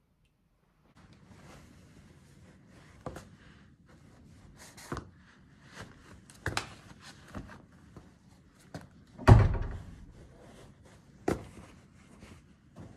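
Shoes being put on with a long shoehorn on a hard tiled floor: a string of separate knocks and thuds as chunky sneakers and the shoehorn strike the floor, the loudest a heavy thud about nine seconds in.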